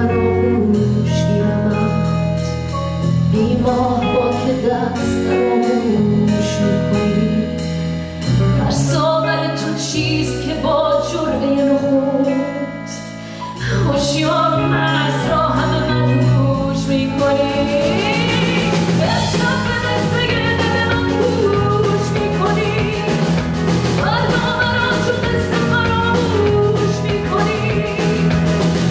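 Live band music with a woman singing a Persian song over a steady drum beat. Her voice wavers through quick ornamented turns about two-thirds of the way in.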